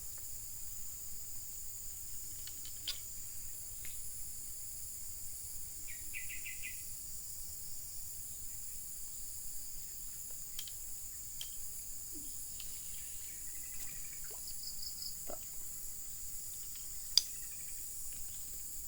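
Outdoor swamp ambience: a steady high hiss of insects, with a few short bursts of rapid bird chirps and scattered light clicks, one sharp click near the end.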